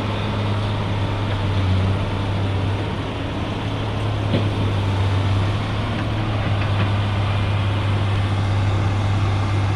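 A steady low mechanical hum, like an idling motor, under a constant rushing noise, with one faint click about four seconds in.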